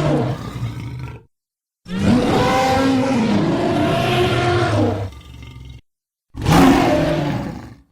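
Dinosaur roar sound effects, played one after another: the end of one roar fading out, then a long roar of about three seconds with a bending pitch, then a shorter, louder roar about six and a half seconds in, each clip ending in a clean cut to silence.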